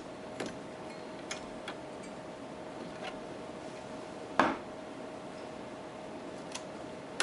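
Light clicks and taps from computer parts and cables being handled, with one louder knock about four seconds in, over a faint steady hum.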